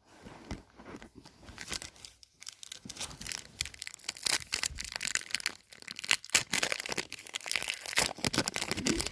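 Foil wrapper of a football trading-card pack being torn open and crinkled, a dense irregular crackling that gets busier and louder about halfway through.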